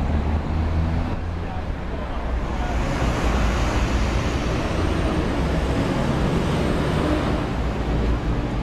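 Busy city street ambience: steady road traffic noise mixed with indistinct voices of passers-by.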